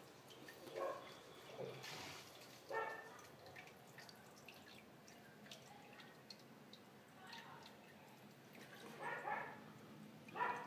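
Faint dripping and trickling of aquarium water, with a few short, sharp sounds standing out about a second in, near three seconds, and twice near the end.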